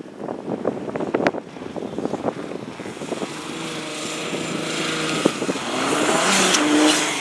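Car engine passing at speed on track. A run of sharp pops comes first, then the engine note builds to its loudest about six to seven seconds in and starts to fade.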